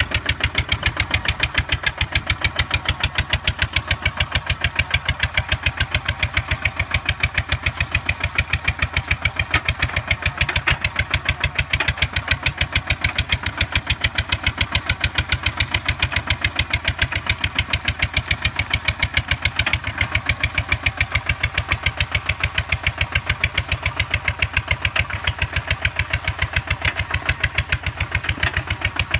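Walking tractor's single-cylinder diesel engine running steadily under load while pulling a plough through rice-field mud, with a rapid, even exhaust beat.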